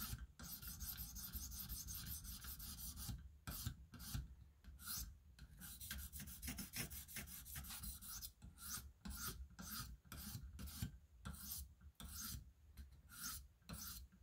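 Faint scraping of a 1500-grit stone on a KME guided sharpening system stroked along the edge of an M390 steel knife blade, the final stone refining the scratch pattern. A couple of long strokes come first, then quicker short strokes about two a second.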